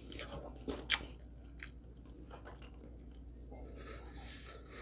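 A person chewing a mouthful of glazed rotisserie chicken close to the microphone, with soft wet mouth clicks that come mostly in the first two seconds.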